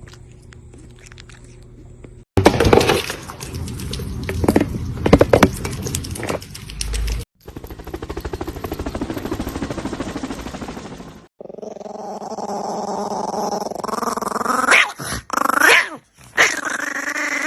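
A dog vocalizing in drawn-out, wavering calls that slide up and down in pitch during the last several seconds, after stretches of noisy clatter and knocks.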